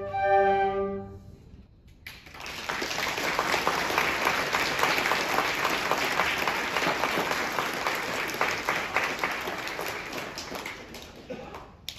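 A small woodwind ensemble of flutes, clarinet and alto saxophone holds its final chord, which dies away about a second in. After a short pause, applause starts and goes on for several seconds, fading near the end.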